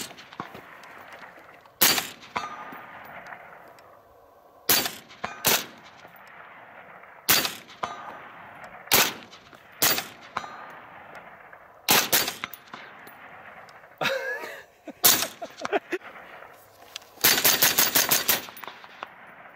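Semi-automatic rifle fire from two rifles, one of them a suppressed AR-15: about ten single and paired shots a second or two apart, then a fast string of about eight shots near the end. A short metallic ring sounds about two-thirds of the way through.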